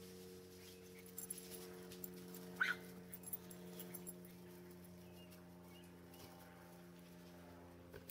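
A small dog gives one short, high whine that falls in pitch about two and a half seconds in, over a steady low hum with a few faint taps.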